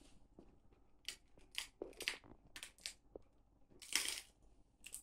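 A dog chewing a dried rabbit ear treat: irregular crisp crunches about every half second, the loudest about four seconds in.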